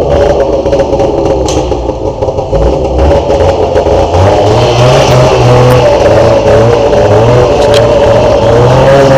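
Arctic Cat Z 440 snowmobile's two-stroke engine running. The revs pick up about three to four seconds in and then hold steady.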